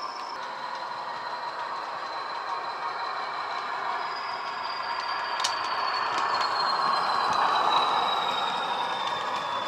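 ESU LokSound decoder in a Bachmann OO-gauge Class 40 model diesel, playing the English Electric locomotive's engine sound with a high turbocharger whistle through its two 27 mm bass speakers. The sound grows louder as the model approaches, loudest about eight seconds in, while the whistle slowly drops in pitch; a single click comes midway.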